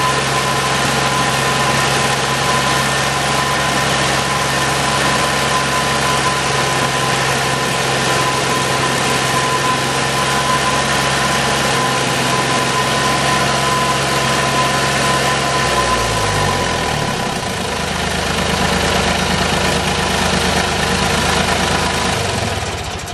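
Ditch Witch 3700 trencher's engine running steadily with a high whine over it. About two-thirds of the way through it drops to a lower pitch, and near the end the sound begins to die away as the engine shuts down.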